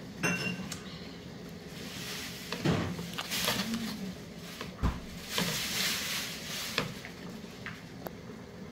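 Chopped vegetables and onion pieces slid off a cutting board into a stainless steel pot of bubbling broth: knocks and clatters, with two spells of splashing and a low thud about five seconds in.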